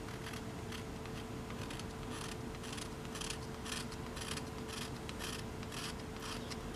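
Pocket knife blade scraping the shiny finish off a wooden awl handle in short, quick, faint strokes, about three a second.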